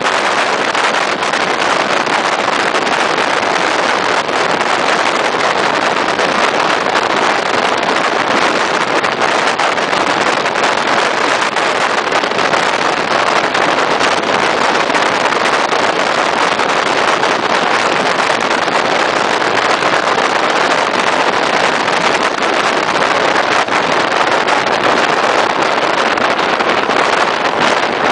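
Regional passenger train running at speed through a tunnel, heard from an open carriage window: a loud, steady rush of wheel-on-rail noise and air.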